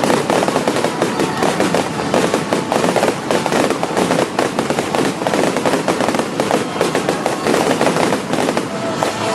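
Aerial fireworks going off in a dense barrage: many rapid, overlapping bangs and crackles.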